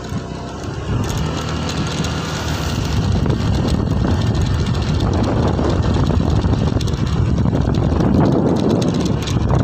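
Vehicle engine running with road and wind noise while moving along a road, getting louder over the first few seconds as it speeds up.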